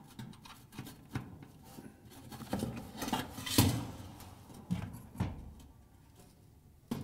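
Spade wire connectors being pushed onto the terminals of a dryer's thermal fuse and heater element, with scattered light clicks and rubbing against the sheet-metal heater housing; the sharpest click comes about halfway through.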